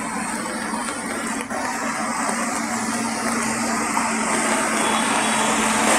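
A vehicle engine humming steadily at one pitch over the hiss of traffic on a rain-wet road, growing slightly louder.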